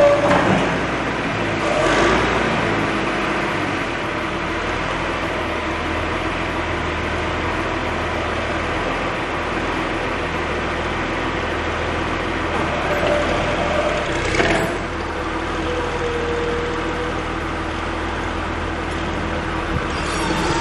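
John Deere 710D backhoe's diesel engine running steadily, with a couple of brief clunks about two seconds in and again near the end.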